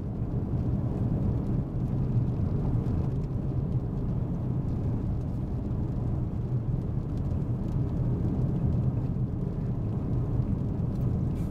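Steady low rumble of road and engine noise heard inside a moving car's cabin, with a few faint ticks near the end.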